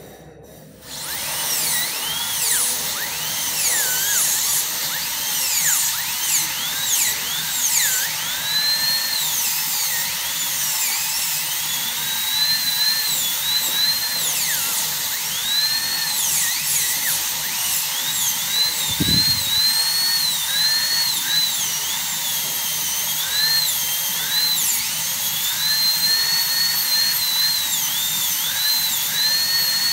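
A high-speed dental handpiece starts about a second in and whines as its bur cuts the buccal cusp of a premolar on a plastic typodont. The pitch dips and recovers again and again as the bur bears on the tooth and lifts off.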